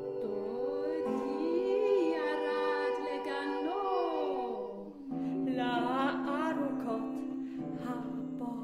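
Women's voices singing contemporary vocal music: held notes sustained while one voice slides up and down in pitch over them. About five seconds in the sound briefly breaks off and a lower held chord begins, again with gliding lines above it.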